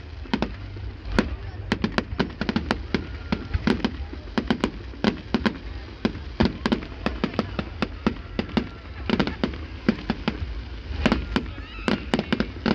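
Fireworks going off: a rapid, irregular run of sharp bangs and cracks, many a second, with no pause.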